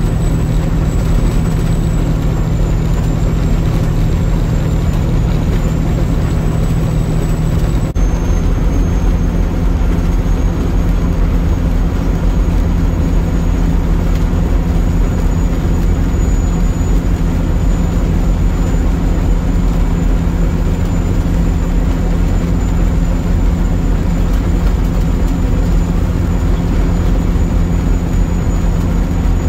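Peterbilt semi truck's diesel engine droning steadily at highway cruise, with road and wind noise, heard from inside the cab.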